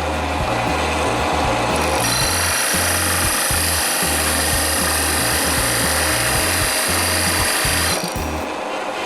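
Titan TTB541DBT drill press boring into pine with a 75 mm Forstner bit at high speed: a steady rasping cut over the running motor. It is heavier from about two seconds in until about a second before the end. The motor holds its speed under the load, and the fast speed is scorching the edges of the hole.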